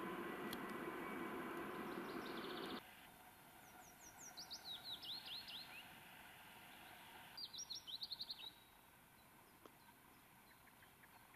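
Distant diesel locomotive running as it pulls away, a low rumble with a steady hum that stops abruptly about three seconds in. Then a small songbird sings twice, each song a quick run of high notes sweeping downward.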